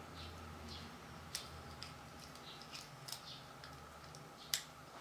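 Faint scattered clicks and rustles of small objects being handled, with a sharper click near the end, over a faint low hum.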